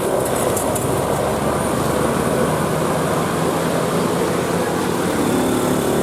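Steady loud rumble of a bus engine and tyres with traffic noise, no horn melody; a few faint tones come in near the end.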